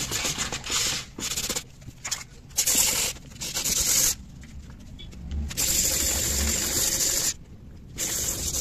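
Sandpaper worked by hand around the inside of a Suzuki Access 125 scooter's clutch drum, in several rasping strokes of a second or so with short pauses between them. The scuffing cleans the friction surface that the clutch shoe linings grip, so that the clutch does not slip.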